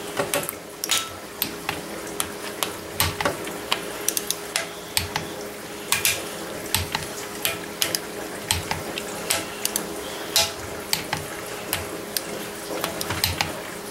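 Torque wrench set to 45 foot-pounds, clicking sharply as it is fitted to bolts on a cast-iron cover and pulled, again and again with short gaps: each bolt is being rechecked at its final torque. Light metal clinks of the socket seating on the bolt heads come between the clicks.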